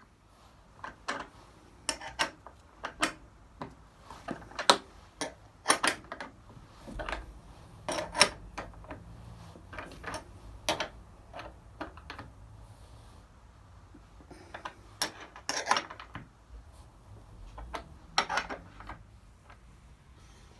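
Irregular metallic clinks and knocks in clusters as the pins are worked out of door hinges used as mounting cleats for a plywood bulkhead, releasing it.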